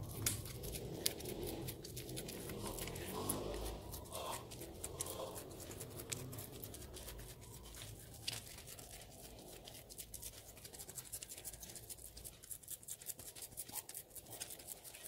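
Plastic dough scraper scraping and dabbing a thin layer of sticky rice dough flat on oiled baking paper: a run of faint, soft scratches and ticks that come thicker in the second half.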